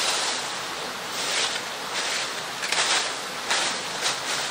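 Dry fallen leaves rustling in a series of short scrapes, about one a second, as they are swept with a branch and scuffed with boots.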